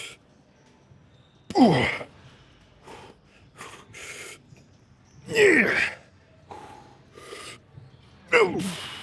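A man breathing hard from exertion: three loud, drawn-out voiced gasps about three to four seconds apart, each falling steeply in pitch, with quieter breaths in between.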